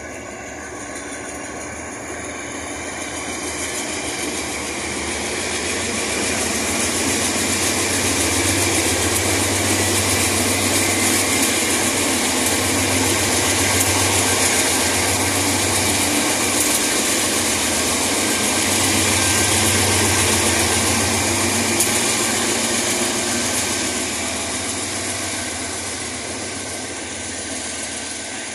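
Three GE AC44i diesel-electric locomotives pull an empty grain train past at close range, their diesel engines working under power. The engine noise builds, is loudest as the locomotives go by, then eases as the empty hopper wagons follow. A faint steady high whine runs along with the engine noise.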